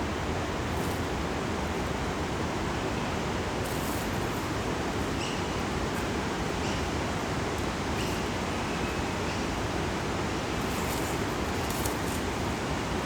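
Steady rushing forest ambience, an even noise like running water or wind in the trees. A few faint, short high chirps sound in the middle, and there are brief soft crackles.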